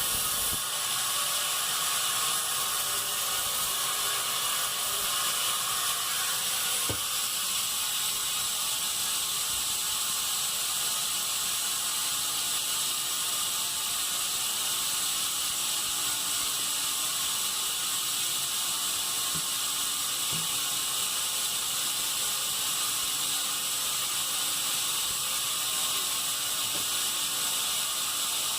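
Sawmill bandsaw running steadily, a continuous high-pitched hiss of machinery with a single faint knock about seven seconds in.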